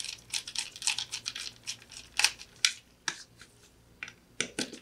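Small Phillips screwdriver tightening a screw in the Sonoff Basic's terminal block to clamp a mains wire: a run of small irregular clicks and scrapes of metal on the screw and the plastic case, with a few sharper clicks about two seconds in and near the end.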